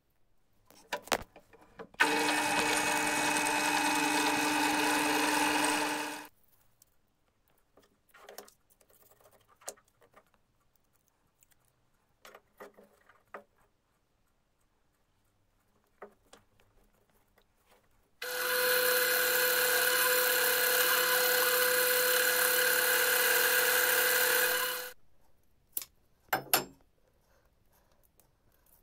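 An electric power tool's motor runs twice at a steady speed: about four seconds, then, after a pause of light handling clicks and knocks, about seven seconds, its hum at a different pitch the second time.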